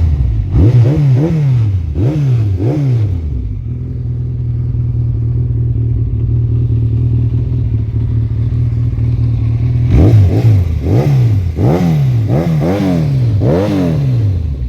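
Yamaha XJ600S Diversion's air-cooled inline-four engine running through Akrapovič silencers with the baffles removed. It is revved in about five quick throttle blips, settles to a steady idle for several seconds, then is blipped again about six times near the end.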